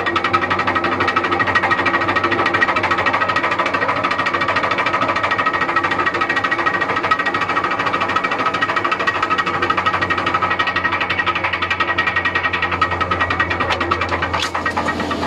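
McCloskey C38 cone crusher running with a rapid, steady knocking clatter, the sign of its broken anti-spin device.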